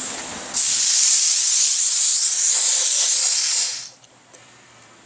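Compressed air hissing hard from a coin-operated air station's hose. It starts abruptly about half a second in, holds steady for about three seconds and cuts off sharply.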